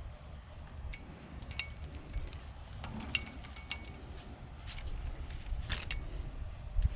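Scattered metal clinks and taps of hand tools and metal fittings being handled, with a couple of short ringing clinks about three seconds in.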